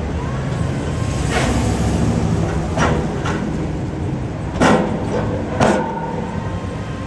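Piling rig's diesel engine running steadily, with several sharp clanks; the two loudest come about a second apart in the second half and ring on briefly.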